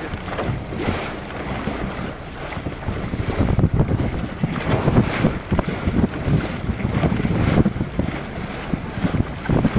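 Wind buffeting the microphone on a boat over choppy open water, with waves splashing; the gusts grow louder about three seconds in.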